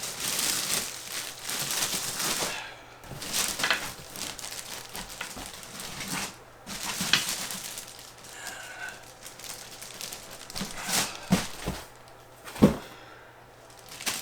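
Packaging being handled while a PC case is unboxed: irregular crinkling and rustling, with a few knocks and one sharp, loud knock near the end.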